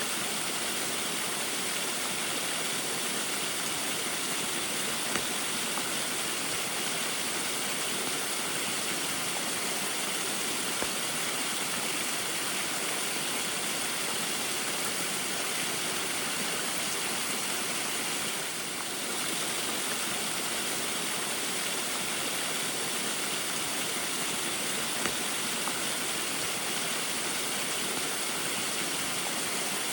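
Small waterfall in the rain: a steady, even rush of falling water, with a few faint ticks of drops, dipping briefly about two-thirds of the way through.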